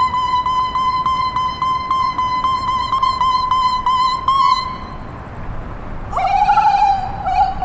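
High held tone of voice-and-electronics performance music, pulsing about four times a second, with bright overtones. It stops about five seconds in, and near the end a lower, wavering held tone begins.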